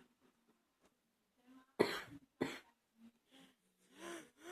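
A person coughing during an allergy flare-up: two sharp coughs about half a second apart a little before the middle, then a few softer coughs and strained breaths.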